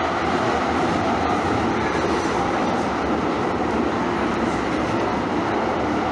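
Calgary CTrain light-rail train running, with a steady, even rumble of wheels on the rails.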